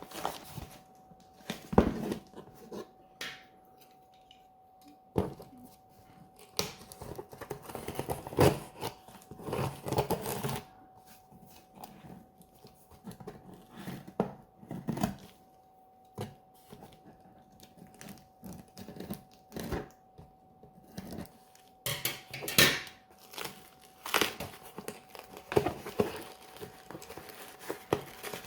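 A 4K Blu-ray box set's packaging being handled and opened by hand: irregular rustling and crinkling of wrap and cardboard, with scattered sharp clicks and knocks. A faint steady hum runs underneath.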